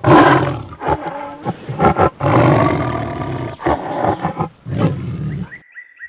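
Tiger roaring: a run of about six rough calls of different lengths, the first the loudest and the longest one around the middle, stopping about half a second before the end.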